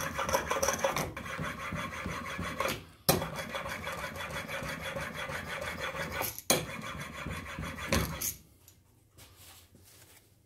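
A steel chisel bevel, held in a roller honing guide, rubbed back and forth on an ultra-fine diamond sharpening plate to polish the edge: a steady gritty rasp broken by two sharp clicks, stopping about eight seconds in.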